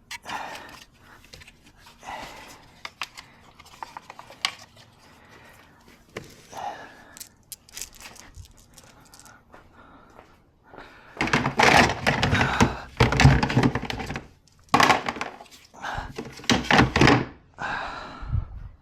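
Car interior trim being taken apart by hand: light plastic clicks and scraping, then from about eleven seconds in a run of loud thunks and clattering as pieces are pulled loose and handled.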